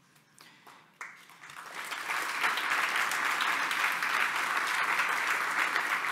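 Audience applauding: clapping starts about a second in after a brief near-quiet, builds quickly and then holds steady.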